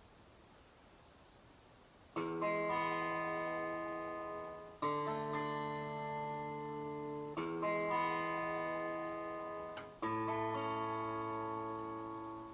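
Background music: after about two seconds of near silence, slow instrumental chords come in, each held and fading before the next, changing about every two and a half seconds.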